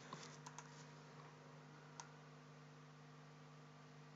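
Near silence: room tone with a faint steady hum and a few faint, short clicks from a computer keyboard and mouse, one about two seconds in.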